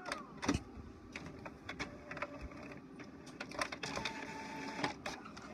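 HP Officejet inkjet all-in-one printer working through a print job: irregular mechanical clicks and knocks from the paper feed and print carriage, with a brief steady motor whine near the end.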